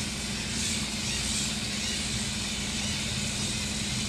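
Small wheeled robots' drive servos whirring steadily, a constant low hum with a hiss over it.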